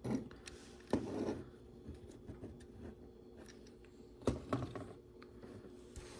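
Lego bricks being handled and pressed together: a few small plastic clicks, one about a second in followed by a brief rustle, and two more close together near the end.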